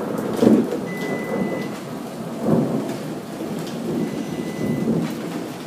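LiftMaster 3850 garage door opener, running on its battery backup, closing the door with a steady rumble, mixed with rain and rolls of thunder. Two faint high beeps come about a second in and about four seconds in.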